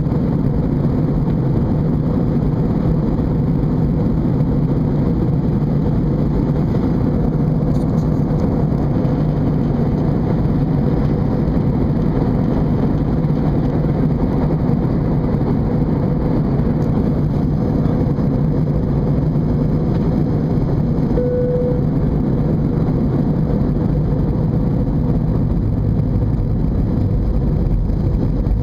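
Steady drone inside an Airbus A320 cabin in flight: engine and airflow noise that holds an even level throughout. A brief faint tone sounds about two-thirds of the way through.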